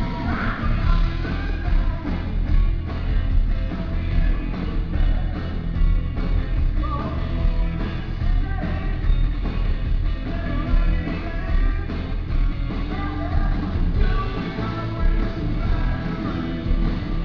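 Live rock band playing a song with a male lead singer, drums and guitars, heard loud through the PA from the audience.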